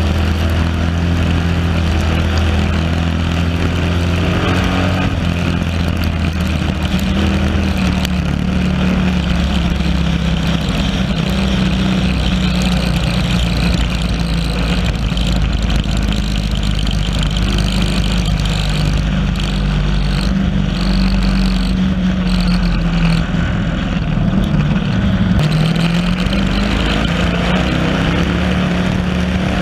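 Stock car engine running hard under racing, heard on board the car, with the noise of other race cars around it. The engine note holds mostly steady, drops about three-quarters of the way through, then climbs back up.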